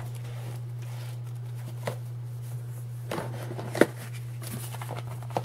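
Paper instruction booklet being flipped and handled: a few short rustles and taps, the sharpest about two-thirds of the way through, over a steady low hum.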